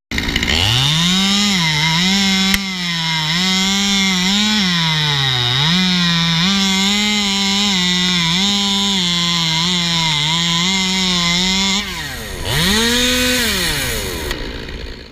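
Chainsaw cutting wood: it revs up, holds at high revs with repeated dips in pitch as it bogs in the cut, drops near the end, revs once more briefly and stops.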